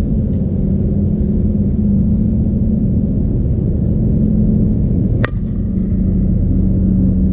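Softball bat striking a pitched ball once, a single sharp crack about five seconds in, over a steady low hum.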